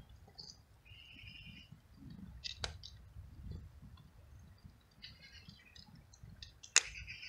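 A cat eating dry kibble: quiet crunching and clicking as it bites and chews the pellets, with two sharper clicks, one near the middle and one near the end.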